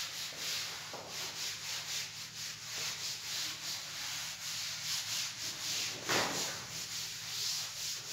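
Cloth duster wiping chalk off a blackboard: a steady run of rhythmic, hissing back-and-forth strokes, about two to three a second, with one louder swipe about six seconds in.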